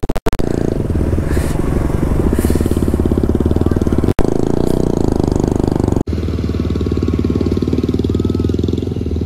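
Motorcycle engine running steadily under way, heard from the rider's own bike. The sound breaks off abruptly at about four and six seconds, and after the second break it is duller.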